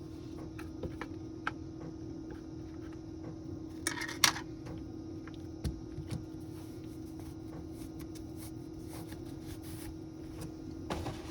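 Small hand tools clicking and tapping on a smartphone as it is worked on, with a short scraping rustle and a sharp click about four seconds in, over a steady low hum.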